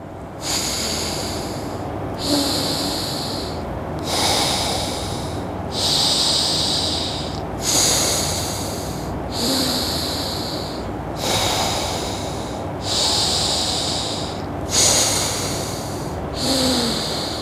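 A man breathing forcefully in and out through one nostril at a time, the other pressed shut with his fingers, in alternate-nostril breathing (nadi shuddhi). There are about ten airy breaths at an even pace, one every second and a half or so, each starting sharply and tapering off.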